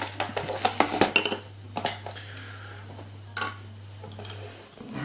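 Small metal lock tools and parts clinking and clicking as they are handled: a quick cluster of clicks in the first second and a half, then a few scattered ones. A low steady hum underneath stops near the end.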